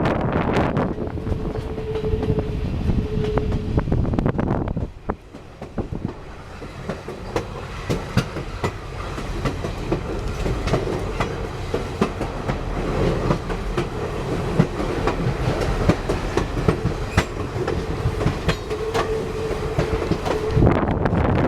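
Passenger train rolling along the track, heard from the open rear platform of the last car: a steady rumble with clickety-clack of the wheels over rail joints. A thin steady whine sounds over it in the first few seconds and again near the end, and the rumble drops away briefly about five seconds in.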